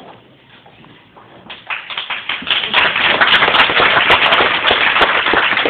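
A crowd applauding: the clapping starts about a second and a half in, swells quickly and stays loud and dense.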